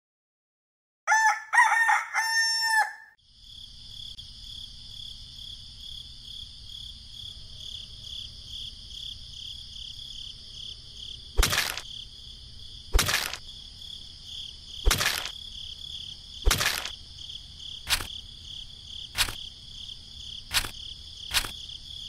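A rooster crows once, about a second in. Then a steady high chirring of insects sets in, and in the second half a series of sharp knocks comes about every one and a half seconds.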